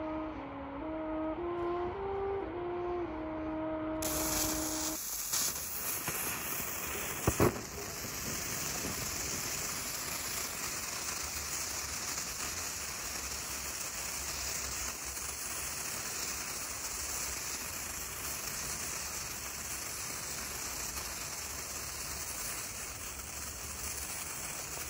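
A short tune of single notes stepping up and down for the first few seconds. It gives way, about four seconds in, to the steady fizzing hiss of a 'Baby Kacke' novelty snake firework burning as its black ash snake grows, with one sharp crack about seven seconds in.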